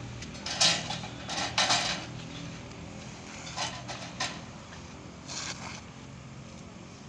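Steel scaffolding pipes clanking and scraping as they are dropped onto a stack of pipes: a loud metal clatter about half a second in, a quick cluster of clanks soon after, then a few lighter clanks.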